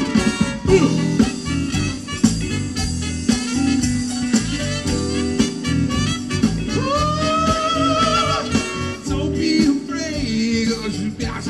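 Live band with electric guitars and a singer playing a song with a steady beat and bass line. About two-thirds of the way through, a long held note with vibrato rises above the band.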